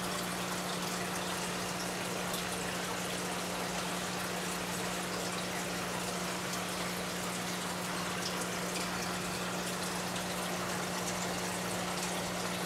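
Aquarium filter running: a steady rush of moving water with faint bubbling pops, over a steady low hum.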